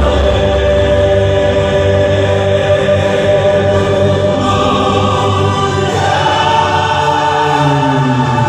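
Two gospel vocal quartets singing together in close harmony, holding long sustained chords, with a change of chord about six seconds in.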